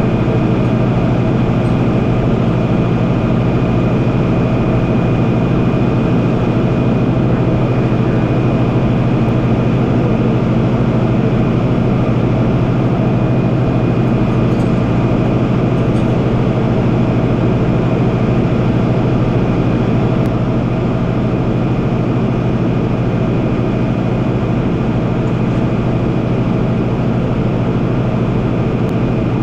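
Freightliner rollback tow truck's diesel engine idling steadily, picked up close from a camera on the cab door, with a thin steady high whine on top.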